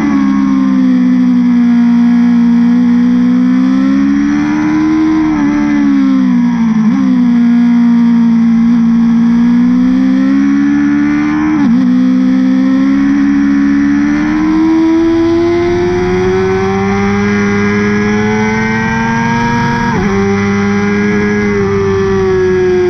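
2017 BMW S1000RR's inline-four engine, with Akrapovic headers and can, heard on board at track speed. The engine note climbs and falls as the rider accelerates and slows through the corners, and its pitch jumps abruptly about three times at gear changes.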